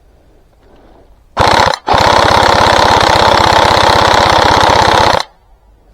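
Airsoft electric gun firing full-auto close by: a short burst about a second and a half in, then after a brief pause one long burst of rapid, evenly spaced shots lasting about three seconds, stopping abruptly.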